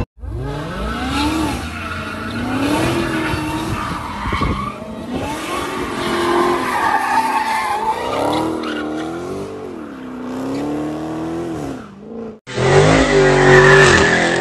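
Dodge Charger doing donuts, its engine revs rising and falling over and over while the rear tyres squeal and skid. About twelve seconds in, a second Charger's burnout takes over, louder, with the engine held high and a steady loud tyre squeal.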